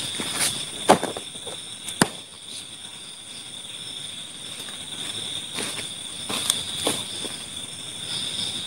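Night insects, likely crickets, trilling steadily at two high pitches. Under them are rustling and handling noises from a paper package and bag, with two sharp clicks about one and two seconds in.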